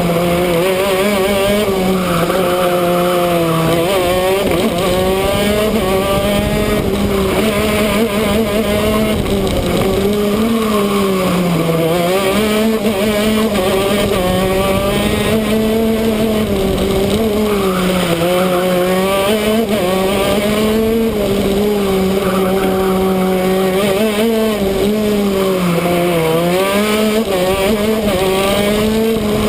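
Two-stroke shifter kart engine at racing speed, heard on board from close up: a steady high-revving note that dips in pitch and climbs back about four times as the kart lifts off and accelerates again through the corners.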